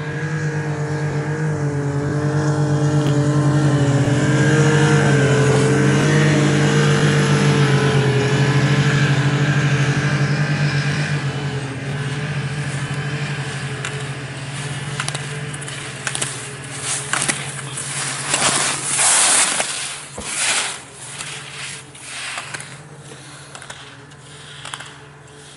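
A steady motor hum with a slightly wavering pitch, fading out about halfway through, followed by a series of short scraping or rushing noises.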